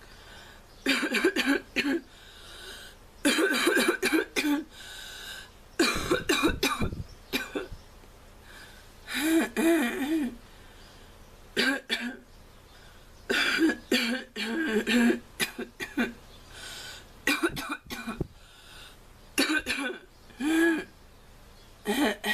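A girl coughing in short, harsh fits every second or two, some with a hoarse, voiced edge. Her sore throat from a cold makes the cough sound almost croupy.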